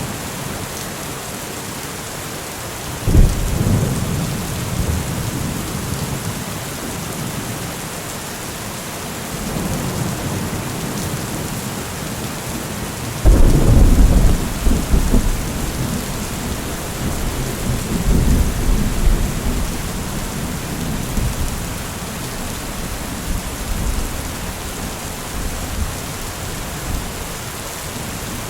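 Steady rainfall with thunder: a sudden thunderclap about three seconds in, a louder one about thirteen seconds in that rolls on in a low rumble, and more rumbling a few seconds later.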